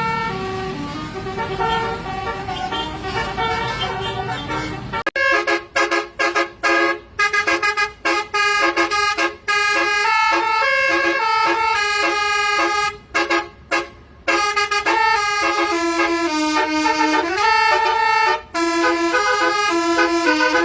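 Basuri telolet horn, a multi-trumpet musical bus air horn, tooting a melody from a handful of fixed notes. For about the first five seconds the tune is muffled over a low rumble. It then cuts to a clearer, louder run of short staccato notes with brief gaps between them.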